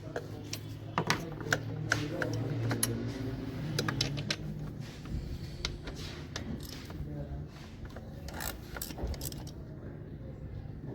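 Metal hand tools and a socket spanner clinking and knocking against the engine in short, irregular clicks as the intake manifold bolts and nuts are undone.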